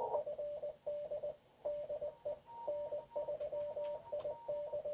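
Morse code (CW) coming through a ham radio receiver on the 20-metre band: a single steady-pitched tone keyed in quick dits and dahs as a station sends its call sign, with a fainter, higher-pitched tone from another signal keyed underneath.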